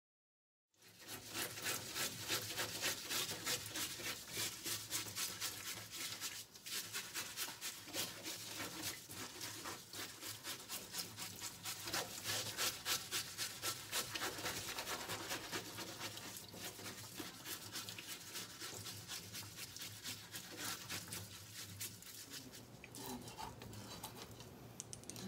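The fine scales of a whole greater amberjack being scraped off by hand in a steel sink, in fast, even strokes, with tap water running. The scraping starts about a second in and eases off toward the end.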